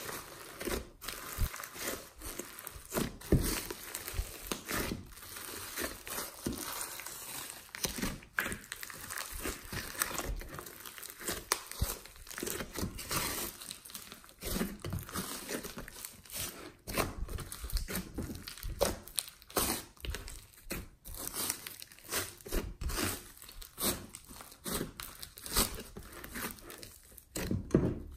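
Hands kneading, squeezing and folding a large lump of glossy slime mixed with clay, glitter and foam beads: an irregular run of wet crackles, pops and squishes.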